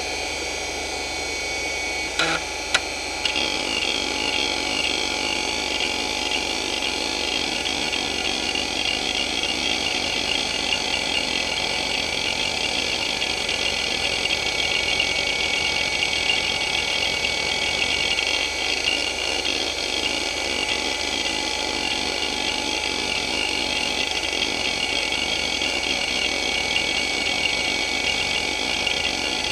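Hitachi DK225A-14 2.5-inch two-platter hard drive spinning with a steady whine. Two sharp clicks come about two seconds in. From about three seconds in there is continuous rapid, rippling seek chatter as the heads sweep back and forth under the hdmotion seek-pattern test.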